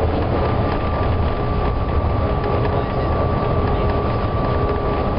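Volvo B9TL double-decker bus running at motorway speed, heard from inside the passenger saloon: a steady, loud diesel engine and road rumble. A faint steady whine sits on top of it from just after the start.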